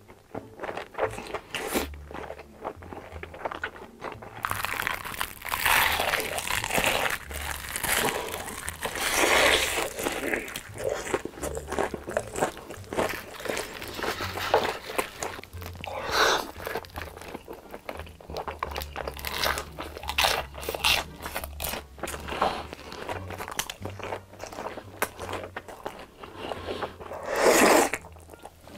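Close-miked eating sounds: crunching bites of fried cheese sticks and chewing, with a loud slurp of spicy ramen noodles near the end.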